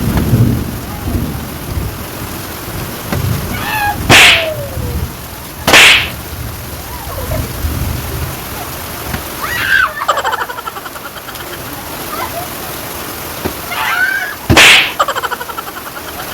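Three loud, sharp open-hand slaps to the head: one about four seconds in, another under two seconds later, and a third near the end.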